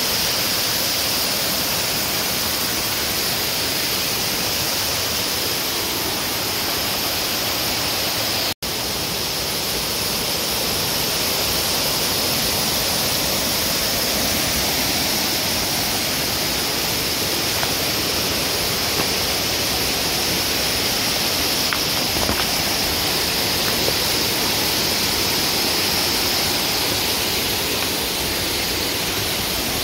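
Small woodland waterfall and rocky creek cascades rushing steadily, with the sound cutting out for an instant about a third of the way in.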